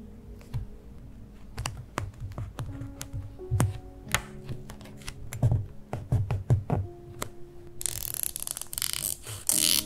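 Small sharp clicks and taps of metal tweezers picking up and pressing on paper stickers, over soft background music. From about eight seconds in, scissors cut through a sticker sheet, a dense cutting sound lasting about two seconds.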